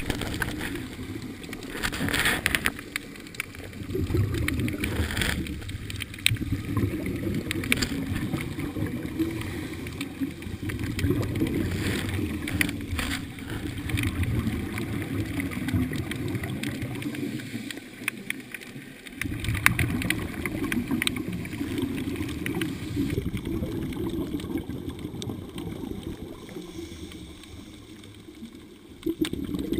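Scuba regulator exhaust bubbles gurgling underwater, heard through a camera housing as long stretches of low rushing noise, with a brief lull about two-thirds of the way through and another near the end. Scattered sharp clicks run through it.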